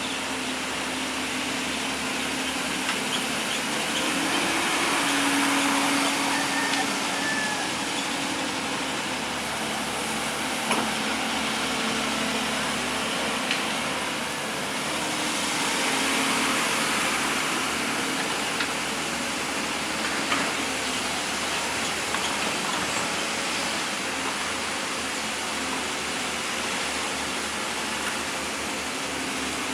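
Large hydraulic excavator's diesel engine running steadily, swelling twice as it works under load, with a few sharp knocks.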